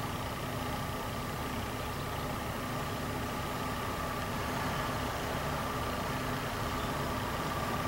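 Steady mechanical hum with a constant high whine, unchanging throughout.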